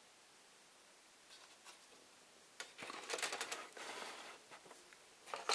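Black plastic model-kit sprues being handled and shuffled: a few faint clicks after a quiet second or so, then dense rustling and clattering, loudest near the end.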